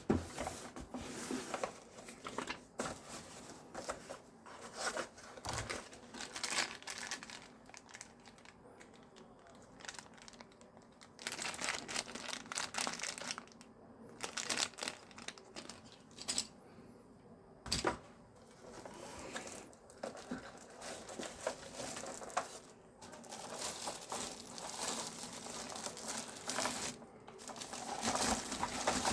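Keyboard packaging being opened and handled: plastic and paper crinkling and tearing in irregular bursts, with occasional sharp clicks.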